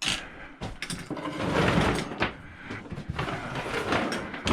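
A saw being moved and set back in place on a shelf: scraping and sliding handling noise with several knocks.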